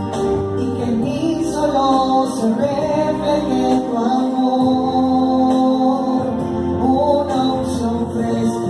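A woman singing a Catholic worship song into a microphone, accompanied by electronic keyboards playing held chords.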